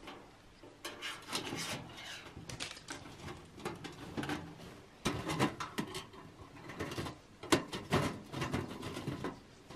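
Thin titanium panels and pins of a folding mini wood stove being handled and fitted together: irregular scraping, rubbing and sharp metallic clicks, the loudest about seven and a half seconds in.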